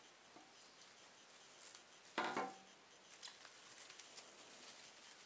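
Clear plastic cling wrap crinkling and rustling as it is stretched and tucked around a foam food tray, with faint scattered ticks and one louder, short crackle about two seconds in.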